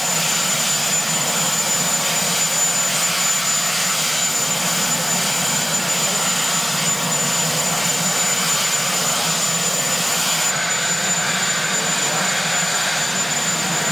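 Marine One, a Sikorsky VH-3D Sea King helicopter, running on the ground with its turbine engines turning: a loud, steady rushing noise with a thin high whine.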